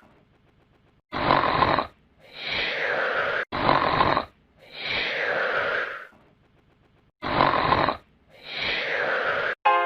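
Comic snoring sound effect: three snore cycles, each a short rasping snort on the in-breath followed by a longer breathy out-breath that falls in pitch.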